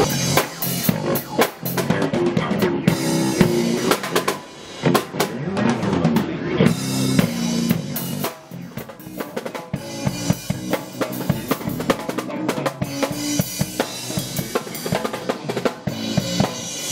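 Drum kit played live, with a steady beat of drum and cymbal hits, and an electric bass guitar playing a line along with it.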